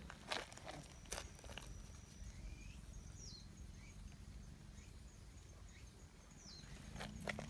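A few footsteps on a dirt path near the start and again near the end. In between, a bird gives short, high whistled calls that fall in pitch, a few seconds apart.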